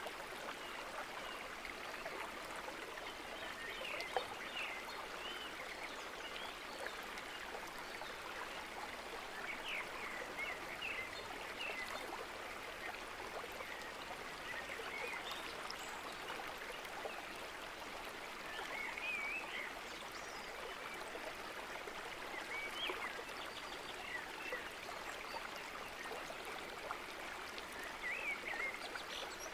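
Steady rush of running water, with short high chirps now and then.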